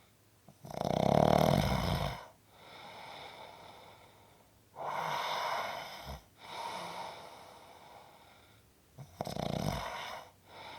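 Snoring: three snores about four seconds apart, the first the loudest with a deep rattle, and softer breaths between them.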